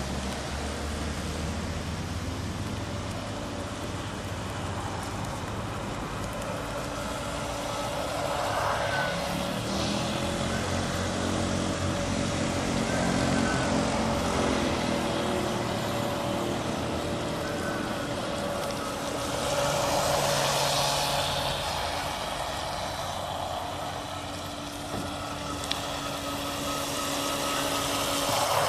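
Miss GEICO 17 radio-controlled racing boat running across a pond, its small electric motor giving a steady whine. The pitch and loudness rise and fall as the boat speeds up, turns and passes.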